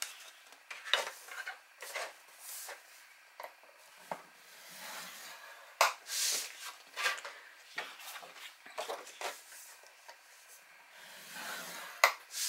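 A sheet of cardstock handled on a paper scoring board: the paper rustles and slides into place with light taps and clicks, and a bone folder scrapes along the board's groove to score a fold line.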